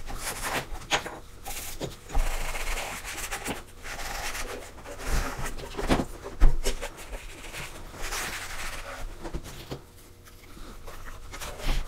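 A cloth wiping down the cabinet of a Bose Acoustimass bass module in repeated rubbing strokes, with a few dull knocks, the loudest about six and a half seconds in.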